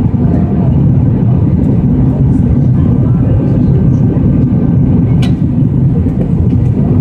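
Steady, loud cabin rumble of an Airbus A319-100 airliner on approach, engine and airflow noise heard from a window seat beside the wing.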